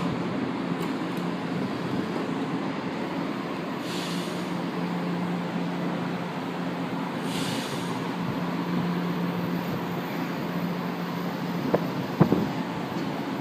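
São Paulo Metro Frota K train standing at a platform with its doors open, its onboard equipment humming steadily. There are two short hisses about four and seven seconds in, and a few sharp knocks near the end.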